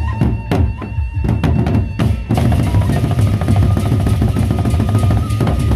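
Gendang beleq ensemble playing: large Sasak barrel drums beaten with sticks. Sharp, separate strokes for about the first two seconds, then dense, fast drumming with a steady high tone held over it.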